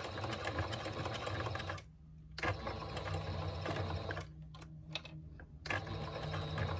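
Domestic sewing machine stitching over a line on a thick, layered faux-leather strap, running in spurts with two short pauses and a few clicks in between.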